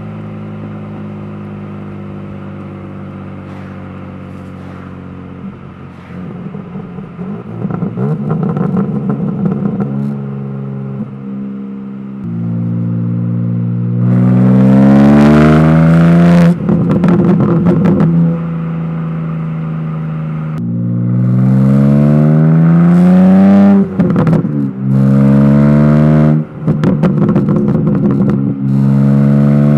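BMW G80 M3's twin-turbo inline-six through its stock exhaust with the valves opened, cruising at part throttle, then accelerating hard twice from about halfway through. The engine pitch climbs and falls back at each upshift, with sharp cracks from the exhaust at the shifts.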